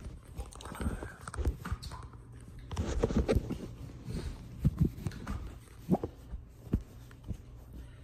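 Close-up eating sounds: chewing and mouth noises, with scattered soft knocks and thumps and a louder noisy stretch about three seconds in.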